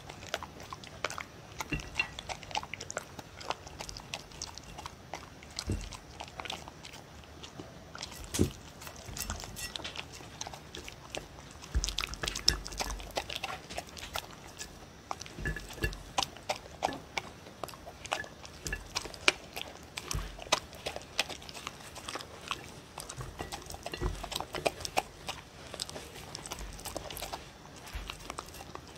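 A dog eating beef kibble with pieces of sweet potato and bell pepper off a ceramic plate, close to a microphone: irregular crunching and chewing with many sharp clicks and occasional soft low thumps.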